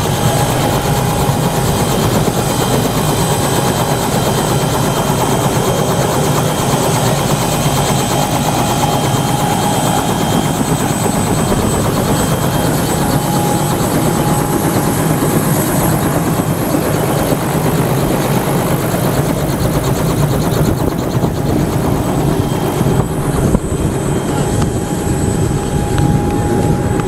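Helicopter running close by on the ground, its engine and rotor making a loud, even rush with a steady whine through it.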